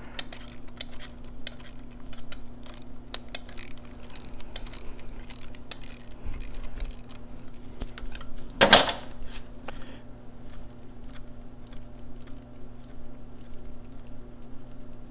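Small ratchet wrench clicking as it backs out the bolt holding the timing cup on the cam, with light metal tool clinks and one louder metal clank about nine seconds in, over a steady low hum.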